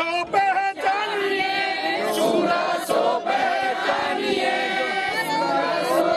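A crowd singing a Sikh religious verse together, many voices in unison led by a male speaker.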